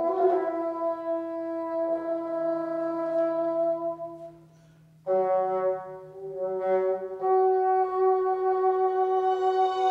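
Solo bassoon playing long sustained notes in a slow passage. One note is held for about four seconds, then after a brief dip a second, slightly higher note is held with a gentle waver, over a faint low sustained tone.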